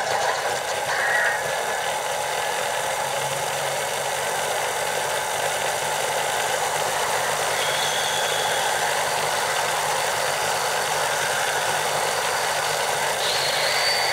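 CSM Henshin Belt Typhoon toy playing its long transformation (henshin) sound as its windmill spins and glows: a steady whirring, wind-like rush. A brief high tone sounds about halfway through, and a steady high tone comes in near the end.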